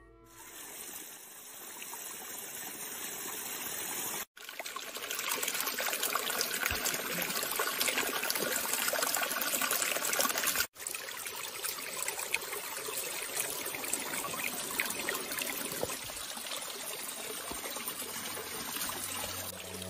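Water trickling and running steadily, cut off briefly twice, about four and about eleven seconds in.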